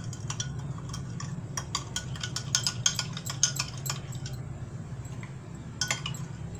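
A spoon stirring an orange drink in a glass tumbler, clinking repeatedly and irregularly against the glass, over a steady low hum.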